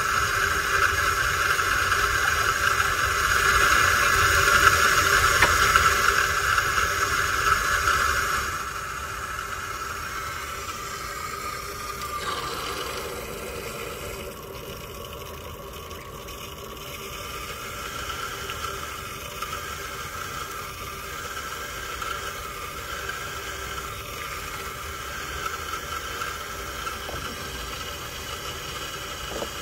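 Water softener in its regeneration cycle, water rushing out through its drain line, which has come loose at the ground and is leaking. The flow is loud at first, drops noticeably about eight seconds in with a brief falling whine, and then runs on as a quieter steady hiss.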